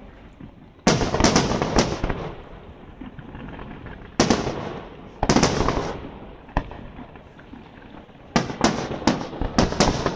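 Aerial fireworks shells bursting in a series of bangs, each ringing on briefly: a quick cluster of about four about a second in, a few single booms in the middle, and a rapid run of about five near the end.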